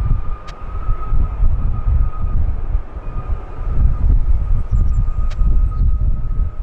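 Jet airliner engines rumbling with a steady high whine, the low end buffeted by wind on the microphone.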